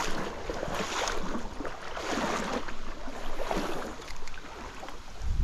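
Stream water splashing and rushing, swelling and fading every second or so.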